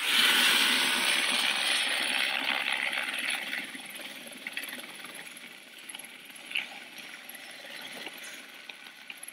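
Helicopter turbine and rotor running with a steady rushing noise and a faint high whine. Louder over the first few seconds, then easing to a lower steady level as the helicopter lifts off the pad.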